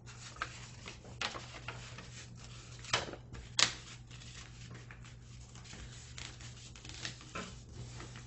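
A sheet of A4 paper being folded back and forth into pleats by hand, rustling and crinkling as the creases are pressed down, with two sharper snaps of paper about three seconds in.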